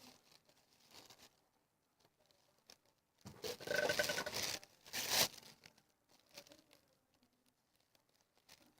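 Paper wrapping from a shoe box rustling and crinkling as it is handled, in a longer burst about three seconds in and a short one about five seconds in.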